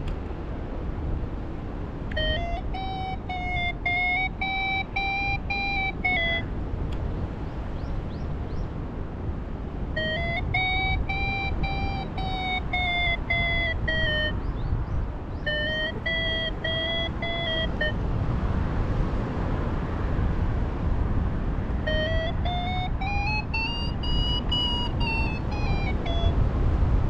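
Paragliding variometer sounding its climb tone in four spells of a few seconds each. The pitch arcs up and down with the lift and goes highest in the last spell, signalling the glider climbing in ridge lift. Steady wind rushes on the microphone underneath.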